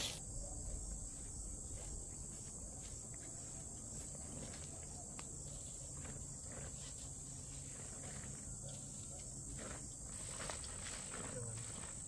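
A steady, high-pitched drone of insects chirring in the background, a little louder from about ten seconds in, with a few faint ticks and taps.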